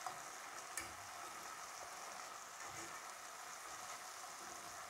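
Faint, steady sizzle of marinated chicken pieces shallow-frying in sunflower oil in a nonstick pan, with two light clicks in the first second as metal tongs turn the pieces.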